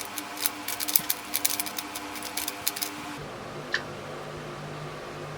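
Rapid clicking of a 3x3 speed cube, a MoYu WeiLong GTS2M, as its layers are turned fast through the last-layer G-perm; the turning stops about three seconds in. A faint steady hum runs underneath.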